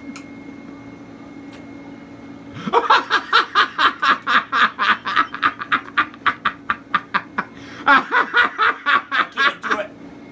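A person laughing hard in quick, even pulses, starting about two and a half seconds in, breaking off briefly, then laughing again in a second run near the end.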